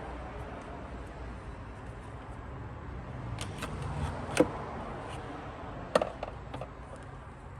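A few sharp clicks and knocks from hands working in a cramped engine bay, tugging at a stuck spark plug wire. The loudest comes about four and a half seconds in and another about six seconds in, over a steady low hum.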